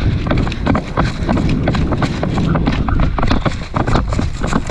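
Brisk, steady footsteps with the rustle and rattle of carried gear, heard close on a body-worn microphone, over a low rumble of wind or handling noise.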